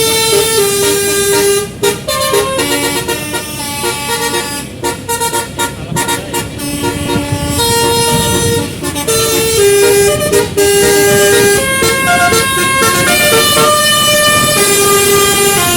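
12-note basuri musical air horn on a tour bus playing a melody: held notes stepping up and down, with a few short breaks between phrases.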